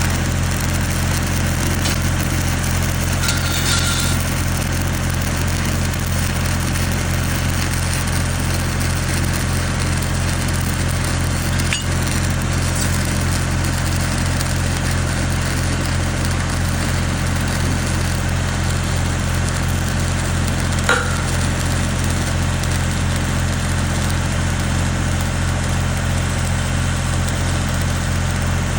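Stick (SMAW) welding arc crackling and sizzling steadily, over the steady low hum of a running engine.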